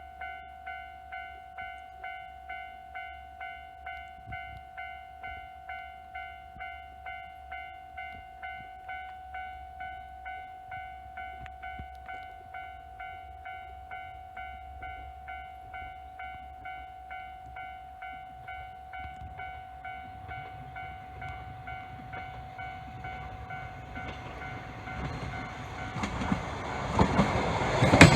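Japanese level-crossing warning bell ringing at an even pace of about three strikes every two seconds, while a diesel railcar approaches: its rumble grows from about twenty seconds in and turns loud right at the end as it reaches the crossing.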